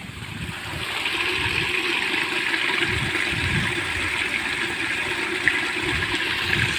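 Paddy-field water rushing and splashing through a concrete pipe in the bank, past a plastic fertilizer sack stuffed in to stop it. A steady rush that grows louder over the first second, then holds.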